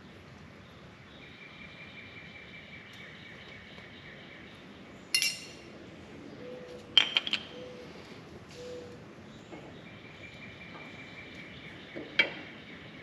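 Metal parts and tools clinking against one another during brake work: a sharp ringing clink about five seconds in, a quick cluster of three or four around seven seconds, and another near the end.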